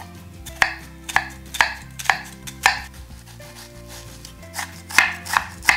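Kitchen knife cutting down through an onion onto a wooden cutting board, the first cuts of mincing it: crisp chops about two a second, a pause, then a quicker run of chops near the end.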